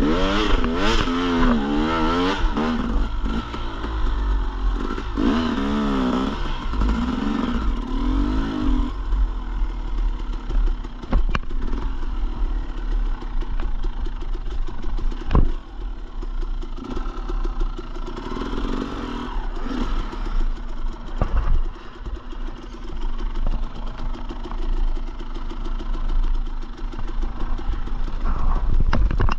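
Dirt bike engine revving up and down repeatedly for the first several seconds, then running at a steadier, lower pitch. A couple of sharp knocks come midway.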